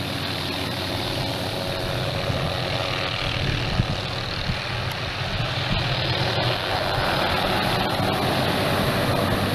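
Steady low engine drone under a rushing wash of noise, with a couple of faint clicks about four and six and a half seconds in.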